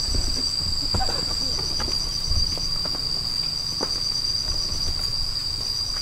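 Cicadas singing steadily: one constant high-pitched whine with a faster pulsing trill just above it.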